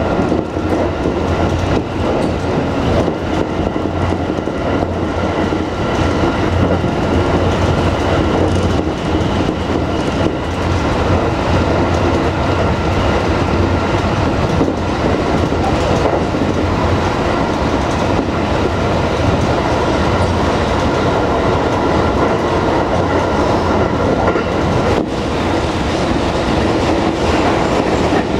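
JR West 225 series electric train running at speed, heard from inside the driver's cab of the leading car: a steady rumble of wheels on rail, with a couple of brief knocks.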